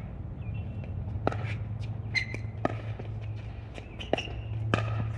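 Pickleball rally: paddles striking the plastic ball and the ball bouncing on the court, sharp pops at irregular intervals, about half a dozen loud ones and several fainter ones.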